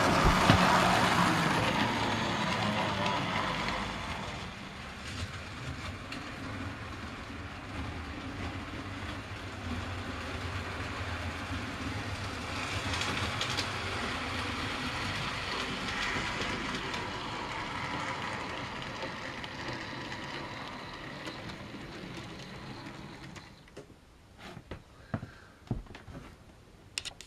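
Model trains running round the layout, their motors whirring and wheels clicking along the rails. Loudest at the start as a train passes close, then dipping, swelling again midway, and fading away near the end with a few sharp clicks.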